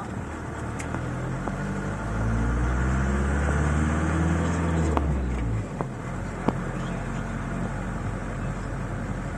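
Camper van engine running, revving up about two seconds in and holding for a few seconds, then easing back to a lower, steady run. A few sharp single clicks follow.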